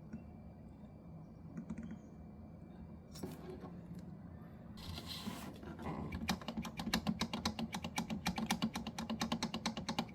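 A rapid, even run of sharp mechanical clicks, about nine a second, starting about six seconds in, after a couple of brief rustles.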